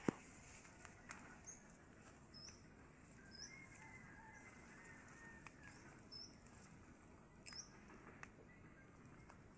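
Faint outdoor ambience: a steady high insect drone, with a short bird chirp repeated every second or so. A sharp click comes right at the start, and a few soft clicks follow.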